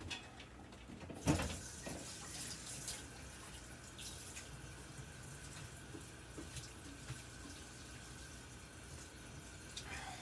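A kitchen tap running steadily into the sink. A single sharp knock comes just over a second in.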